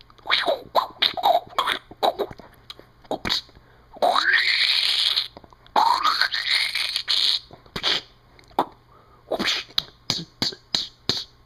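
A man making sound effects with his mouth: a quick run of clicks and pops, then two longer hissing whooshes, each with a sharply rising pitch, then more clicks and pops.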